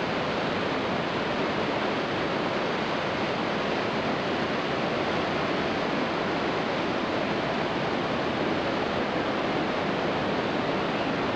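Steady roar of a large waterfall: an even rush of falling water with no breaks or changes.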